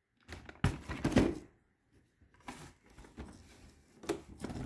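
Cardboard packaging rustling and scraping as a boxed model horse is lifted and handled, in several short bouts, the loudest about a second in.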